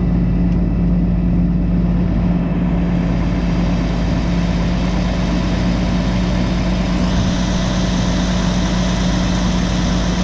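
Big Blue, a New Holland TJ375 tractor, idling steadily on its Cummins diesel engine just after a hard jump-start. A steady low hum runs throughout; about seven seconds in, a higher hiss joins it.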